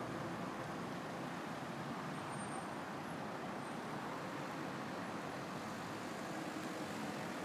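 Steady, unbroken rumble of heavy vehicle engines and road traffic, with no distinct knocks or bangs.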